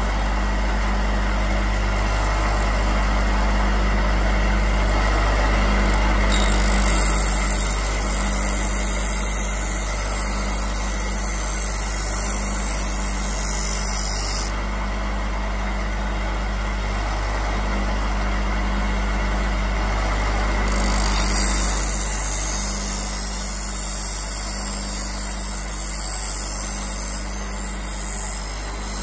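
Homemade bench grinding machine's motor running with a steady hum. Twice, for several seconds each, a high hissing scrape as a steel knife blade is held against the spinning disc to sharpen its edge.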